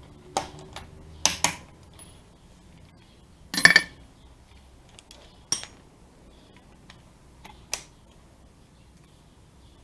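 Lug nuts being torqued to 84 lb-ft on a wheel: sharp metallic clicks of a click-type torque wrench every second or two, with a louder metal clatter about three and a half seconds in.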